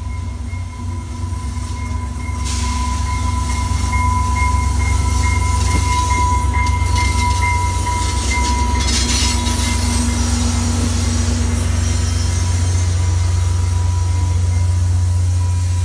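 VIA Rail passenger train led by an F40PH-2 diesel locomotive arriving and passing close by. Its low rumble builds over the first few seconds and holds as the coaches roll past. A steady high squeal from the train fades out about halfway through.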